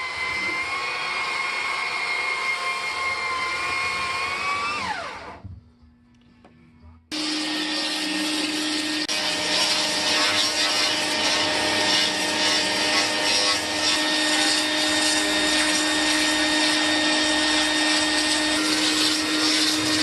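An electric power tool motor whines steadily, then winds down with a falling pitch about five seconds in. After a brief pause, another motor-driven tool starts abruptly and runs steadily with a noisy rushing sound and a hum.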